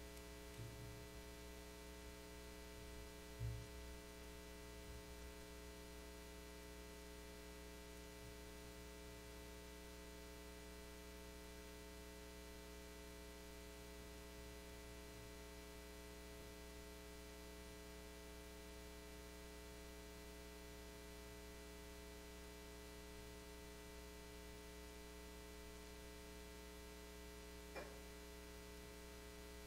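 Near silence filled by a steady electrical mains hum with its overtones. There is a soft low thump about three and a half seconds in and a small click near the end.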